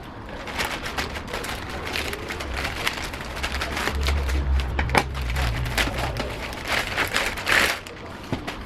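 Packaging handled and torn open: irregular crinkling and crackling, with a few sharper snaps, loudest near the end.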